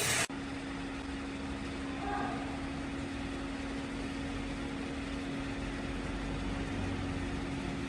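A machine motor running steadily with a low, even hum and one constant tone, starting after a sudden break just after the start.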